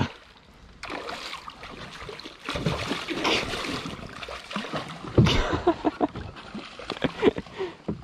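A hooked bass thrashing at the surface beside a small boat, throwing up repeated irregular splashes of water.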